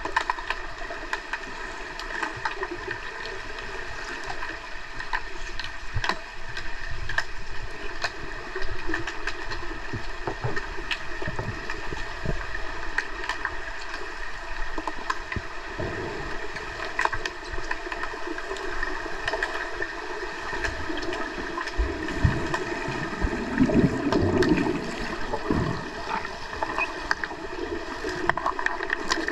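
Underwater ambience of a pool during an underwater hockey game, heard through an underwater camera: a steady hiss and hum with frequent sharp clicks and knocks, and louder bubbling rumbles in the later part.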